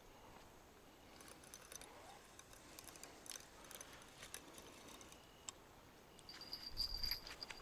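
A fishing reel being wound and tackle handled while a fish is brought in: faint scattered clicks and light rattles.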